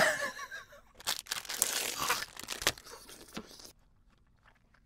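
A woman's short pained cry, then a plastic ice-cream bar wrapper being torn open and crinkled for about two and a half seconds.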